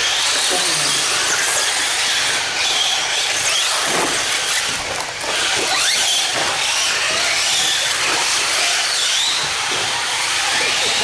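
Several electric radio-controlled cars racing: overlapping high motor whines rise and fall as they speed up and slow down, over a steady hiss.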